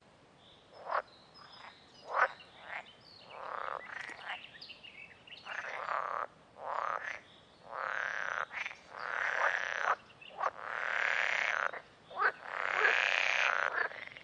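Frogs croaking, one call after another: short, sharp calls at first, then longer calls of about a second each that grow louder toward the end.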